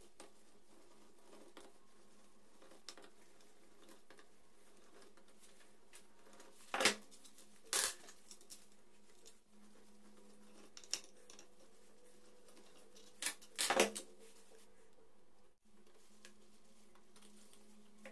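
A socket wrench on an extension bar clinking against the cylinder head cover bolts of a Suzuki GS 150 engine, a few sharp metallic clicks in two short clusters with a faint room hum between.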